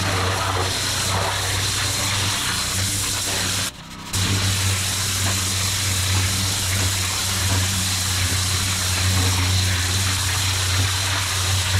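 Pressure washer lance jetting water onto brick block paving: a dense, steady hiss of spray over the machine's steady low drone. The sound cuts out briefly near four seconds in, then resumes.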